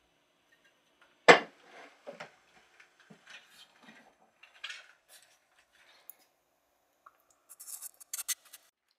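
Handling knocks of a wooden plane body being set into a wooden bench vise: one sharp wooden knock about a second in, then lighter knocks and rubbing, and a quick run of bright clicks near the end.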